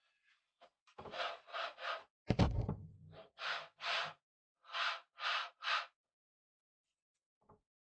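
A series of about eight short scraping or rubbing strokes in groups of two and three, with one heavier knock about two and a half seconds in.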